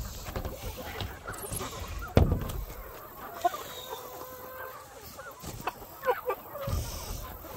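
Chickens clucking close by in short calls, with a heavy thump about two seconds in.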